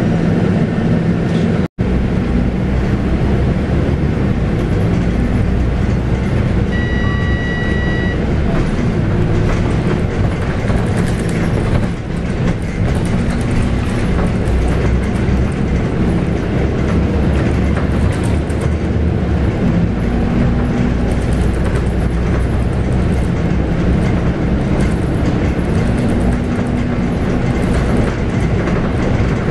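Scania K280UB city bus under way, heard from on board: its 9.3-litre five-cylinder Scania DC9 diesel running with its ZF Ecomat automatic gearbox, over steady tyre and road noise. The sound cuts out for a moment about two seconds in, and a short electronic tone sounds about seven seconds in.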